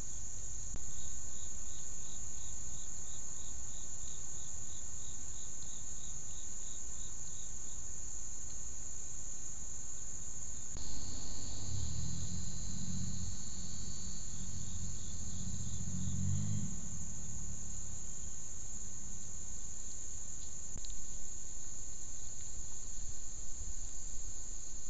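Insects shrilling steadily in high summer heat, with a regular high chirp of about three pulses a second through the first several seconds. A low droning hum rises near the middle and lasts about five seconds.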